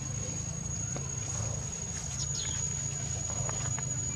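Outdoor forest ambience: a steady low rumble under a constant thin high-pitched whine, with a few faint high chirps about two seconds in and some soft ticks near the end.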